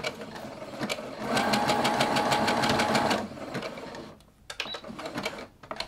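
Brother CS6000i sewing machine stitching a zero-length zigzag in place to sew a button on. It runs for about two seconds with a steady motor whine and rapid, evenly spaced needle strokes, then stops.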